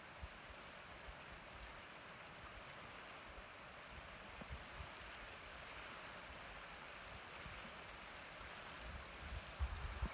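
Faint, steady rushing of a river flowing, with a few low thumps near the end.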